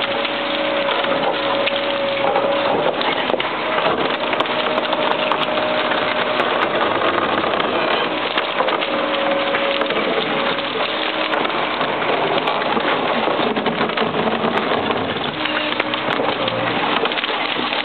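Concrete cracking and crunching as the hydraulic demolition pincer of a Liebherr 914 C excavator crushes the top of a reinforced-concrete wall, chunks breaking off, over the machine's running engine. A steady tone comes and goes beneath the crackling.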